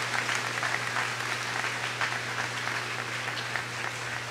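Congregation applauding in a church: many hands clapping steadily, over a constant low electrical hum.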